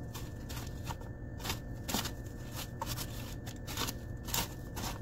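Dry breadcrumbs crunching and rustling in a plastic bowl as raw chicken tenders are coated in them, in many short, irregular scrapes.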